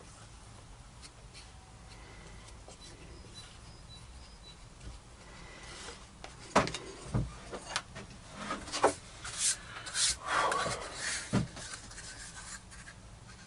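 Plywood boards handled on a workbench: after a quiet start, a few sharp knocks of wood on wood about halfway through, then wood sliding and rubbing for a few seconds.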